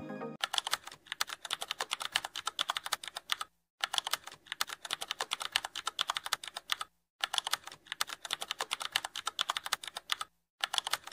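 Rapid, dense clicking like fast typing, many clicks a second, in runs of about three seconds broken three times by brief dead silences.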